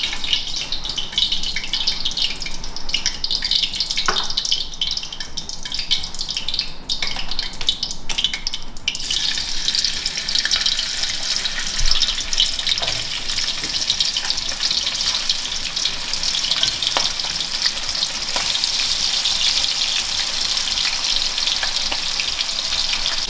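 Hot oil in a wok sizzling and crackling as pieces of meat are dropped in to fry; the sizzle becomes denser and steadier about nine seconds in.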